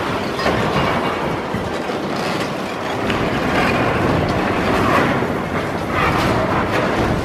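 Demolition excavator's hydraulic crusher jaws biting into a reinforced concrete wall: the machine runs steadily while the concrete crunches and cracks, with short sharp cracks here and there.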